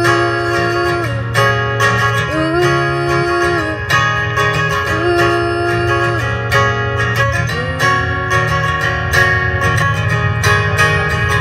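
A strummed acoustic guitar with a woman singing over it, holding long notes that scoop up into pitch and bend off at the end of each phrase.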